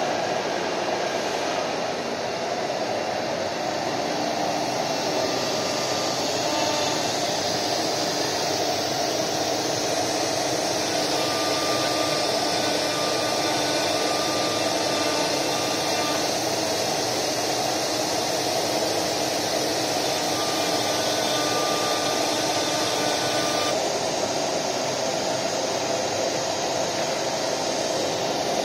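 A 1325 ATC CNC router running, its spindle motors whirring steadily with machining hiss as it works a wooden board. From about ten seconds in until about twenty-four seconds the hiss turns brighter, with a few faint steady tones.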